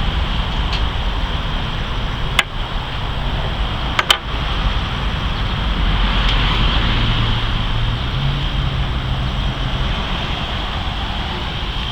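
A steady background rumble and hiss, with a sharp click about two and a half seconds in and a quick double click about four seconds in, from small tools or carburetor parts being handled.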